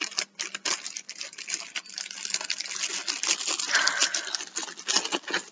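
Rustling, crinkling and quick clicking of packaging and small items being handled and rummaged through, with a stretch of rustle about halfway through.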